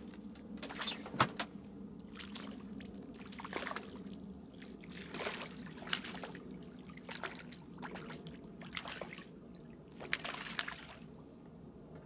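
Water splashing and trickling in short, irregular bursts, about a dozen of them, the sharpest about a second in, over a steady low hum.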